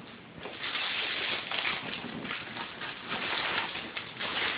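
Gift wrapping paper rustling and tearing in irregular bursts as a present is unwrapped.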